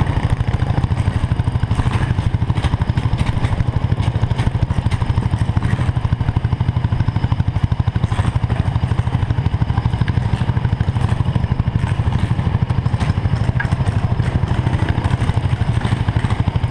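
Racing kart engine idling close to the microphone, a fast, even pulsing that stays steady while the kart sits on the grid and barely rolls.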